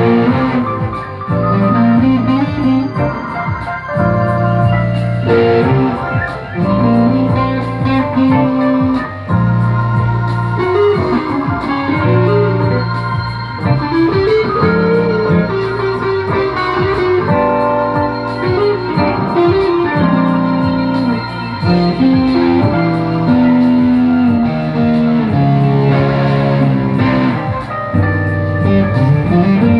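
Music with a steady run of held notes and moving melody lines, played on guitar with an organ-like keyboard sound.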